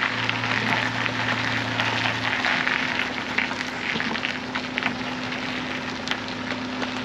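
A motorhome's engine running at a low, steady idle hum as the vehicle turns slowly into a pitch, under a constant crackling hiss. The lower part of the hum drops away about two seconds in.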